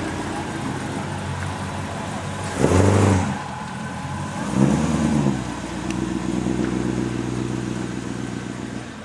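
1956 Chevrolet 210 Delray Club Coupe's engine idling through its exhaust, revved briefly twice, the first blip about three seconds in and the louder of the two, then settling back to a steady idle.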